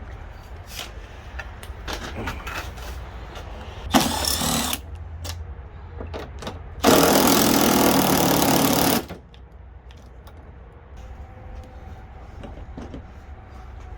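Hand work on a truck headlight: scattered clicks and knocks, a short loud burst about four seconds in, then a power tool running steadily for about two seconds near the middle, over a low steady rumble.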